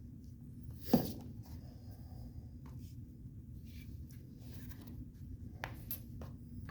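Hand work on a rubber vent window seal being pressed into its frame groove: one sharp knock about a second in, then a few light clicks and rubbing noises over a low steady hum.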